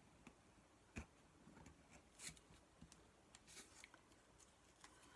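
Near silence with faint handling of craft materials: a soft knock about a second in and a few brief, faint rustles.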